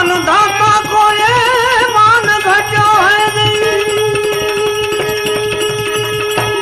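Gujarati bhajan music: a melody line slides up at the start into a wavering, ornamented phrase, then holds one long note over a steady hand-drum beat.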